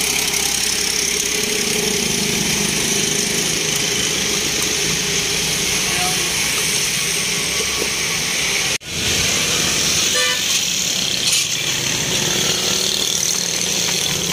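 Steady roadside traffic noise, with a short vehicle horn toot about ten seconds in.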